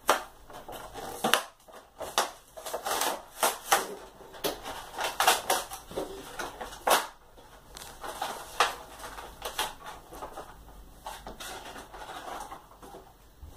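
Stiff clear plastic blister and cardboard card of a toy car's retail package being handled and pried open, with irregular crackling and crunching.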